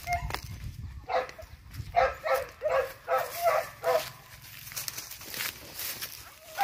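Hunting dog barking on the trail, a quick run of about six barks between one and four seconds in.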